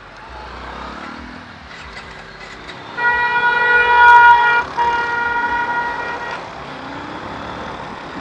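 A vehicle horn sounds two long, steady honks over road traffic noise. The first starts about three seconds in and lasts under two seconds. The second follows after a brief break and is about as long.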